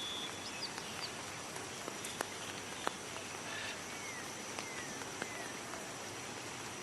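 Outdoor natural ambience: steady background noise with a few faint, short, falling bird chirps about four to five seconds in, and a couple of soft clicks.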